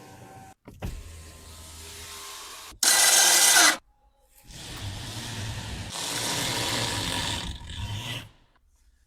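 Electric mechanisms of a BYD Seagull car operating in several short segments that start and stop abruptly, with a loud hissing stretch about three seconds in.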